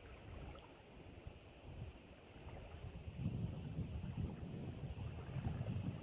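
Wind buffeting the microphone with a low rumble that strengthens about halfway through. Behind it, a faint high chirring that pulses about three times a second, like insects.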